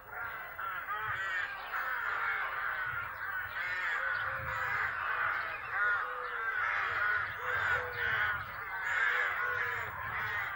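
A large flock of birds calling all at once: a dense, continuous chorus of short, overlapping calls.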